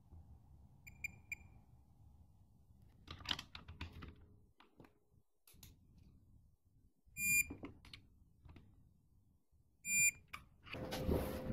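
Snap-on digital torque wrench beeping as it reaches its set torque on an engine nut: a quick run of short beeps about a second in, then two louder beeps later, with clicks of the ratchet head in between.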